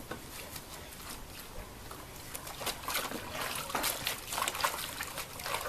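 Water splashing and trickling in a plastic tub as a newborn calf is washed by hand, with many small, irregular splashes and drips.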